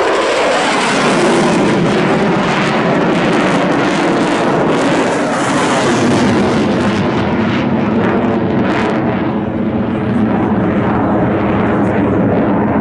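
Loud, continuous jet noise from a pair of Eurofighter Typhoons, each with twin EJ200 turbofans, climbing away after a low-level pass at about 500 knots. The pitch falls right at the start as they go past.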